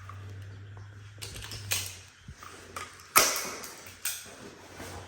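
A few sharp knocks and clicks, the loudest about three seconds in, over a steady low hum.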